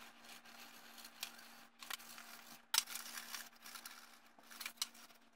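Faint, irregular scraping strokes and clicks from hand work on the old stove's metal parts, over a steady low hum.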